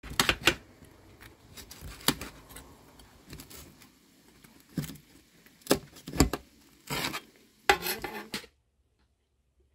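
Knife cutting through the crisp baked crust of layered cheese buns in a metal baking tray: a series of sharp crunches and scrapes of the blade against the tray, stopping shortly before the end.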